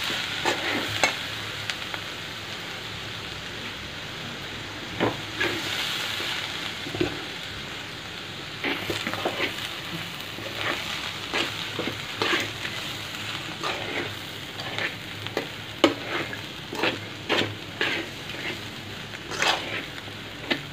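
A metal spoon stirring and scraping cabbage fry coated in spice powder in a metal kadai, over a steady sizzle of the frying vegetables. The scrapes are sparse at first and come about one or two a second from about halfway through.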